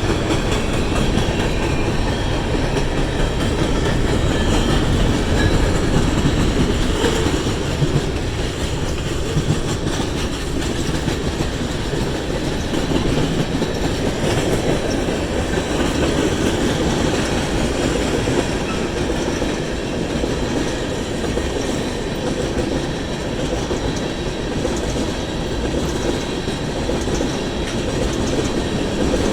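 A train rolling past close by: a steady rumble of railcar wheels on the rails with rhythmic clicking over the rail joints, holding at an even level throughout.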